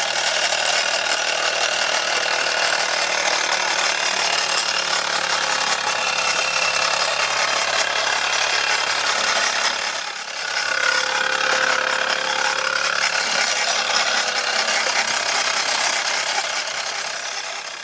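Wilesco D415 model steam tractor running under its own steam: a steady, busy mechanical clatter from its small engine and drive. The clatter dips briefly about ten seconds in and fades near the end. The running is a little noisier than the builder would like, which is quite normal for these Wilesco kits.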